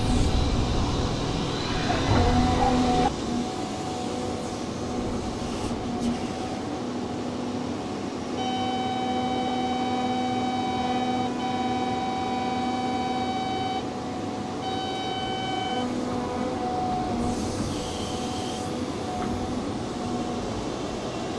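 Cat hydraulic excavator running under load, with a steady engine and hydraulic hum. It is louder and rougher for the first three seconds while the bucket works the soil. About eight seconds in, a steady electronic warning tone from the cab sounds for roughly five seconds, then again briefly a little later.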